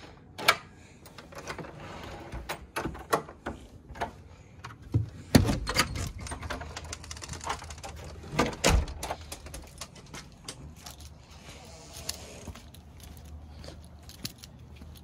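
Door lock and knob clicking, then a run of knocks and footsteps going down stairs. Two heavy thumps stand out, about five and a half and eight and a half seconds in.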